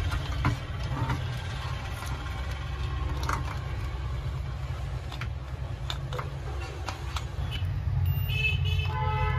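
Light clicks and taps of a screwdriver working on an induction cooker's circuit board, over a steady low rumble. Near the end come a few short high beeps, then a lower pitched tone.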